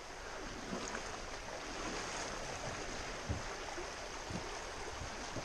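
Fast, shallow stream rushing over rocks. The water noise is steady, with a few short, dull low thumps in the second half.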